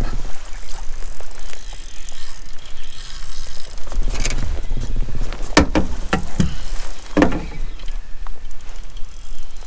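Fishing reel in use while a hooked rainbow trout is played, the reel's mechanism whirring and clicking. A few sharp knocks come between about five and a half and seven seconds in.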